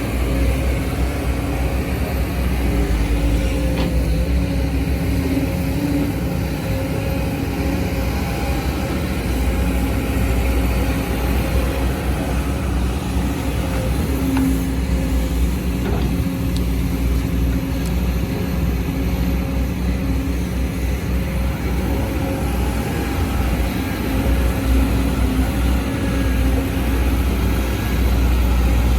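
Sumitomo SH210F hydraulic excavator's diesel engine running steadily under working load: a constant low rumble with a steady higher hum over it.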